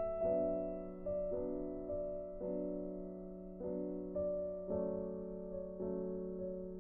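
Background music: a slow piano or keyboard melody, single notes struck about once or twice a second and left to fade over a steady low held tone.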